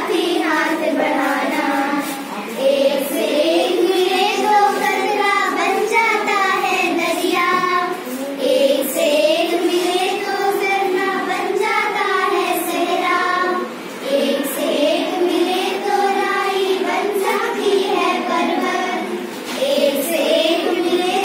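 A group of children singing a Hindi song together in unison, phrase after phrase with short breaks between lines.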